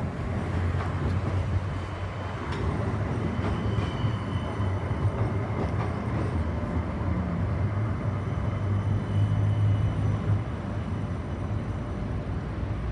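CAF Urbos 100 tram passing at low speed: a steady low running hum, with a faint high steady tone through the middle and a single click early on.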